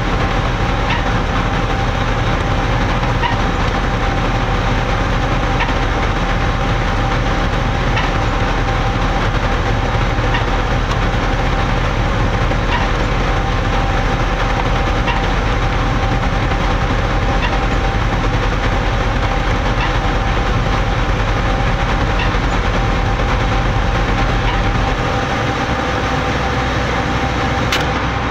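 A concrete mixer truck and a Putzmeister trailer concrete pump running together while concrete is pumped, a loud, steady machinery din. A faint tick comes about every two seconds as the pump cycles. The deep engine hum drops a little near the end.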